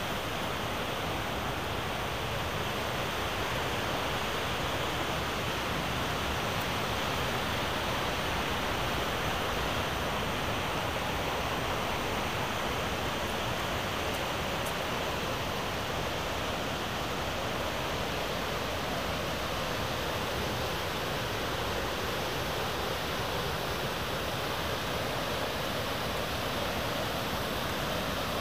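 Mountain river rapids rushing steadily over boulders, a loud, even roar of whitewater, the flow swelled by water released through an opened dam floodgate.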